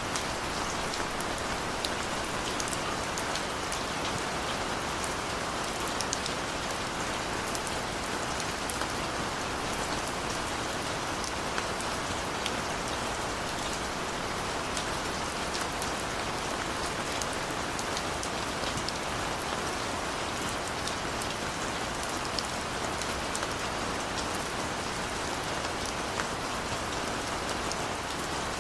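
Steady, even rain falling, with many small drop ticks scattered through it and no thunder.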